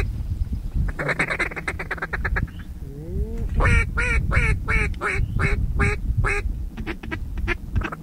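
Duck quacks in a fast series of about four a second, set between two quick chattering runs of much faster notes, over a steady low wind rumble.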